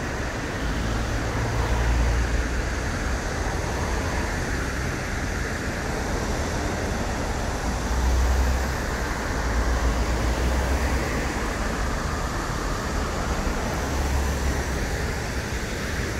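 Steady road traffic, with cars driving past close by on a busy bridge road. A low rumble swells now and then as vehicles go by.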